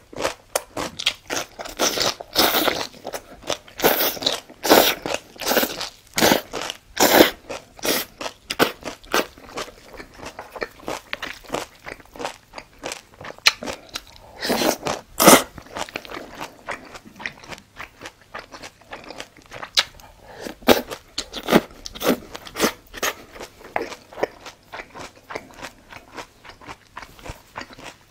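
Close-miked eating: wet chewing of jjajang noodles, with rapid mouth clicks and crackles and a few louder, longer bursts as mouthfuls are taken in.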